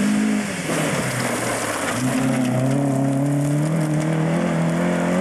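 Vauxhall/Opel rally car engine under hard acceleration on a gravel stage: the engine note dips in the first half second, then climbs from about two seconds in and holds high.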